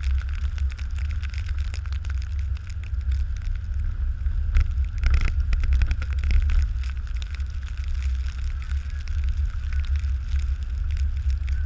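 Plow truck with a back blade, running and moving: a heavy steady low rumble with a thin steady whine over it, and clattering that grows louder for a couple of seconds about five seconds in.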